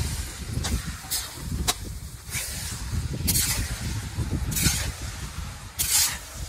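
A metal spatula scraping and clinking against an iron kadai as boiled chickpeas are stirred into masala, in irregular strokes about once a second. A low, steady rumble runs underneath.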